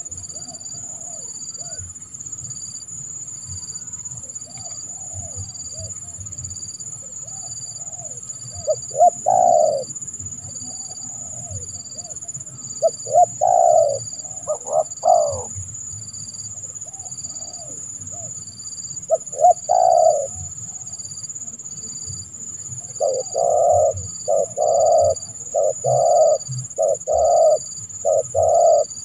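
Spotted dove (tekukur) cooing. Faint coos come first, then loud coo phrases a few seconds apart, and a fast run of repeated coos near the end. A steady high-pitched whine with a pulsing tone runs underneath throughout.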